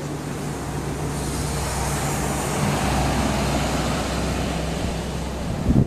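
Street traffic: a motor vehicle passing on the road, its engine rumble and tyre noise swelling to a peak around two to three seconds in and then easing off.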